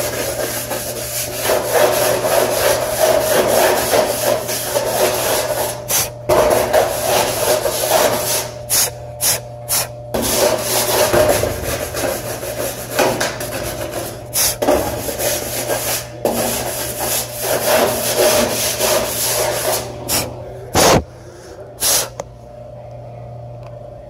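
Dust being rubbed and scrubbed off the sheet-metal reflector of a radiant tube heater: a rough rubbing scrape in repeated strokes with short pauses, quieter near the end.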